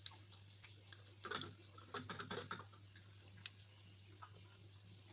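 Faint clicks and knocks of a glass jar of iced tea being picked up off a stone counter and handled, in clusters about a second and two seconds in, over a steady low hum.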